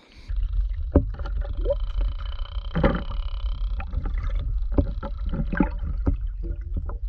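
Muffled underwater sound picked up by a submerged camera: a steady low rumble of moving seawater with scattered clicks and knocks.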